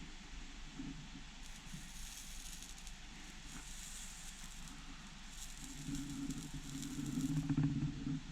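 Flux and solder faintly sizzling and crackling under a hot soldering iron for several seconds, with a low muffled rumble growing louder near the end.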